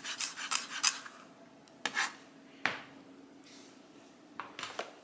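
Knife chopping on a cutting board: a quick run of chops in the first second, then a few separate knocks and scraping of the chopped herbs across the board.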